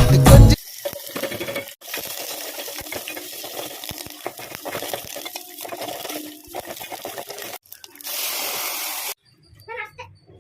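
Quiet small clicks and taps, with a steady hiss lasting about a second near the end.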